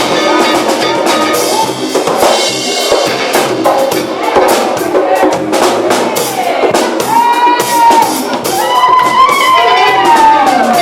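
Funk band playing live at a sound check: a drum kit keeps a steady beat of kick, snare and rimshot under the full band. About two-thirds of the way through, a lead line comes in on top, sliding up and down in pitch.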